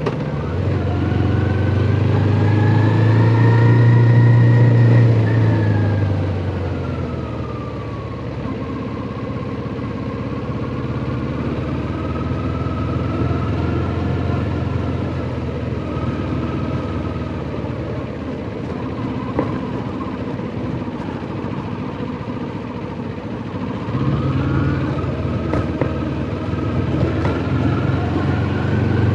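Kawasaki Ninja 400's parallel-twin engine under way on a highway. The revs climb over the first few seconds, ease off and hold at a steady cruise, then climb again about 24 seconds in.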